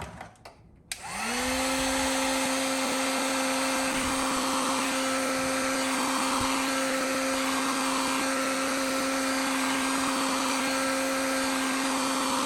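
Electric heat gun switched on about a second in, its fan motor spinning up quickly to a steady hum over an even blowing hiss.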